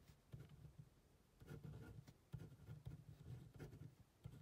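Ballpoint pen writing on a lined paper pad: a string of faint, short pen strokes as a word is written out.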